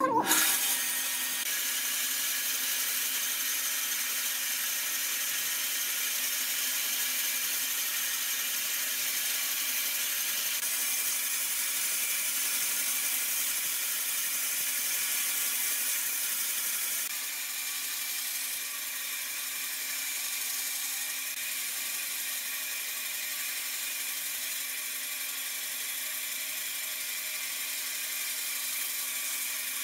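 A vertical bandsaw running steadily, with a hum and a high hiss, while its blade cuts notches in a wooden block. The sound starts suddenly and drops a little past the halfway point.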